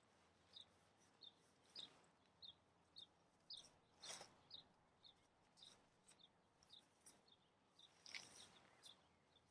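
A bird chirping over and over, short high chirps about every half second, with brief rustles of tent nylon being handled about two, four and eight seconds in, the one near eight seconds the loudest.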